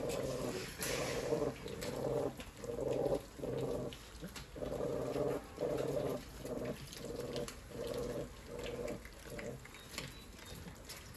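A puppy growling in a run of short pulses, about two a second, while tugging at a piece of raw meat in a food fight. The growls fade toward the end.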